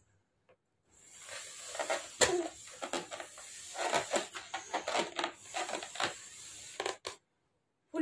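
Someone blowing up a rubber balloon by mouth: breathy puffs of air, with a few short voice sounds mixed in. It starts about a second in and stops about a second before the end.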